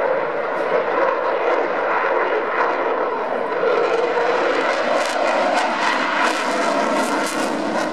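Eurofighter Typhoon's twin Eurojet EJ200 turbofans in afterburner during a display pass: loud, steady jet noise that turns crackly from about halfway through.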